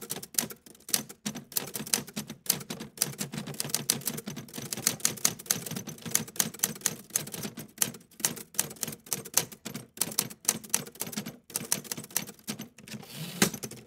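Smith Corona typewriter typing: a fast, uneven run of key strikes, several a second, with a louder strike near the end.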